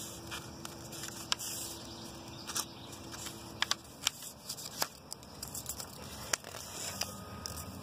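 A sheet of printer paper rustling and being creased by hand during a lengthwise fold, with a few sharp crackly ticks spread through it.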